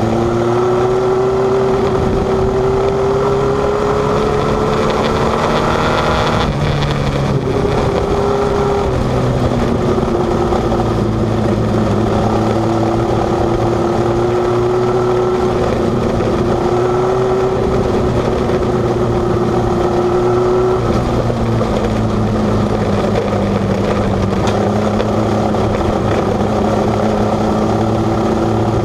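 Mini sprint race car engine running hard, heard from onboard the car. Its pitch climbs slightly, dips about six seconds in, holds fairly steady, then drops lower about two-thirds of the way through.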